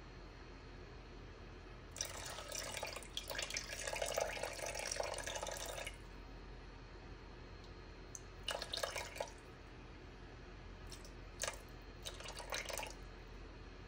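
Water poured from a glass cup into a rice cooker's inner pot of rice: one steady pour of about four seconds, then three short, careful pours to bring the water up to the line.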